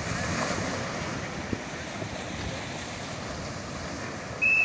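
Sea surf breaking and washing onto a sandy beach, with wind buffeting the microphone. Near the end a short, loud, high-pitched steady tone like a whistle or beep sounds for about half a second.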